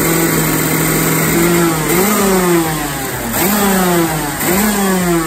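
Vortex 125cc OK-class two-stroke kart engine running with the kart on its stand and the rear wheels spinning free, just after being started. It holds a steady pitch, then is revved three times about a second apart, each rev rising and falling back.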